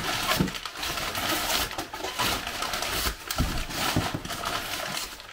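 Crumpled brown kraft packing paper rustling and crinkling in irregular handfuls as it is handled and pulled out of a cardboard shipping box.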